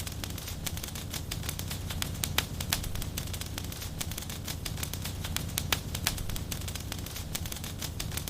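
Wood fire burning in a fireplace, crackling and popping irregularly over a steady low rumble.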